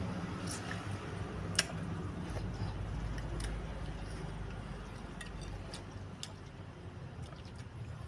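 Close-miked eating of meatballs and noodles: chewing noise with scattered light clicks of a spoon against the bowl, the sharpest about a second and a half in.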